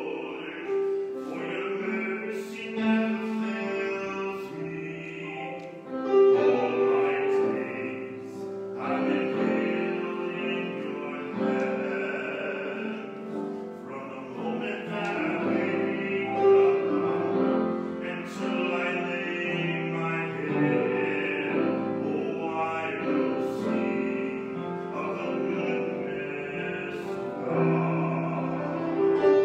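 A man singing a solo in an operatic, classical style over an instrumental accompaniment.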